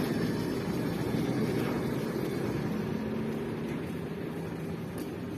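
A vehicle engine running steadily, a low hum that slowly fades.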